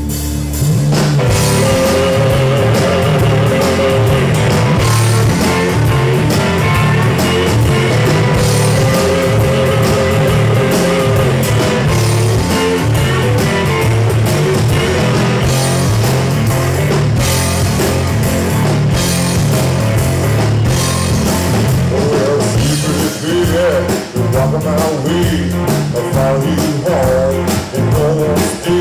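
Live blues-rock band playing loud: electric guitar over bass guitar and drum kit. The full band comes in right at the start.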